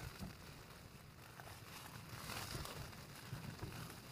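Camping gas stove burner running under a pan of smoked haddock: a faint low rumble and hiss, with a few light crackles.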